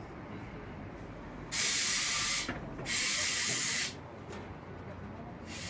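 Compressed air hissing from a tyre inflator filling a tubeless car tyre, in two bursts of about a second each, with a third burst starting near the end.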